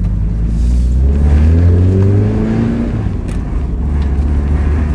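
Mazda MX-5's four-cylinder engine pulling the car along the road: the engine note rises as it accelerates for about a second and a half, then settles into a steady drone.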